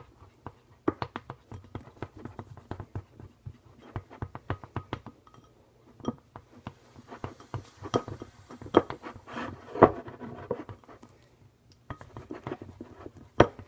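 Gel glue being stirred in a bowl: irregular scraping and sharp clicking taps of the utensil against the bowl, loudest about eight to ten seconds in.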